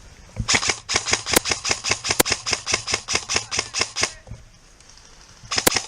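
Airsoft gunfire: a rapid string of sharp shots, about seven or eight a second for nearly four seconds, then a quick pair of shots near the end.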